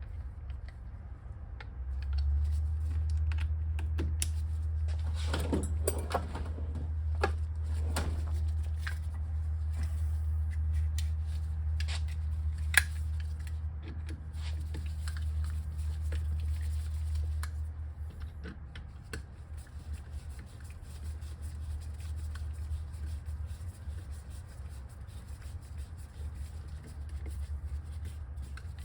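Small metal clicks and scraping of screws and tools being worked by hand on an electric scooter hub motor's cover, over a low steady hum that drops away about two thirds of the way through.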